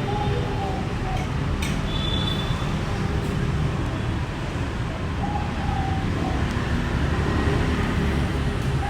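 City street traffic noise: a steady low rumble of passing vehicles, with faint short tones here and there.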